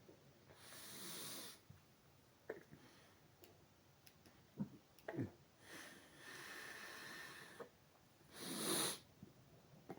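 Quiet, noisy breaths drawn in through the nose, with a few short throat sounds between them, as a man loads up air for a loud burp. The strongest breath comes near the end.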